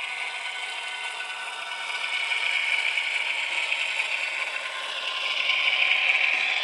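HO-scale Kato AC4400 model locomotive with a QSI sound decoder, running: a steady thin mechanical whir and rattle. It grows louder about two seconds in and swells again near the end.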